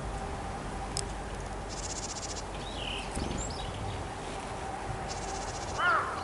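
Varied tits calling: short high chirps and two harsh buzzy calls about three seconds apart, with a louder, lower-pitched call near the end.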